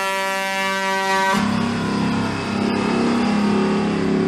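Truck air horn held in one long blast that cuts off about a second and a half in, followed by the FTF semi-truck's diesel engine pulling away.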